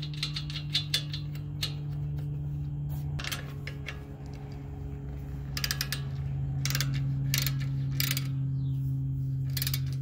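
Hand ratchet clicking as the nut on the AC line fitting at the condenser is run down: a quick run of clicks in the first second and a half, then short bursts of clicks through the rest, over a steady low hum.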